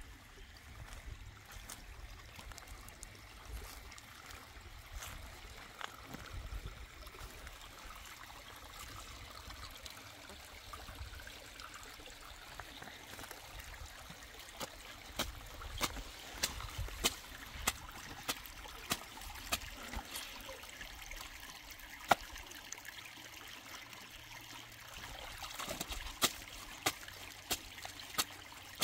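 Water trickling steadily, with irregular sharp clicks and taps through the second half, a couple a second at their busiest.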